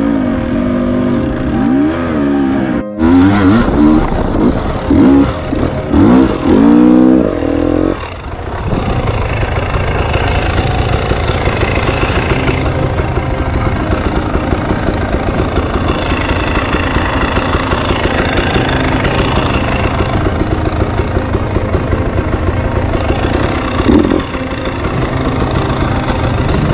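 Off-road motorcycle engine revving up and down in quick throttle blips for the first several seconds, then running steadily under way, with one more short rev near the end.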